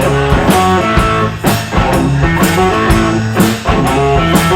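A rock band playing an instrumental intro: guitar chords and a bass line over a steady drum beat.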